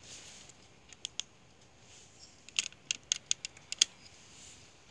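A run of small, sharp clicks: two about a second in, then about eight more in quick, uneven succession near the middle.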